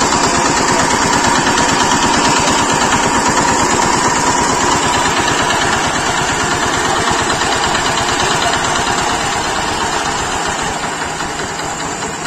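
Single-cylinder diesel engine of a walking tractor (power tiller) idling, a loud, steady run of rapid, even firing pulses that eases off slightly near the end.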